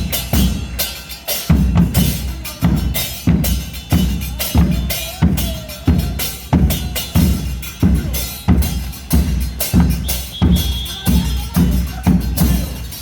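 Murga drum section playing a steady parade beat: deep bass-drum strokes a little more than once a second, with sharp hits between them.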